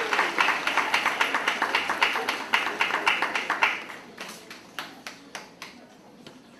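Audience applauding: dense clapping that thins to a few scattered claps and dies away about four seconds in.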